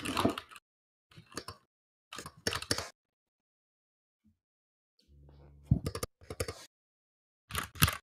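Typing on a GMMK Pro mechanical keyboard fitted with new keycaps: clusters of quick key clacks, heard over a voice call that cuts the sound in and out, leaving silent gaps between the bursts.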